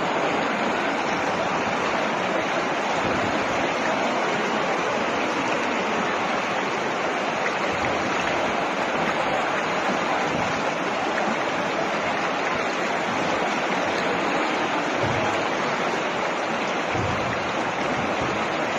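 Steady rushing of fast-flowing floodwater, an even unbroken noise throughout.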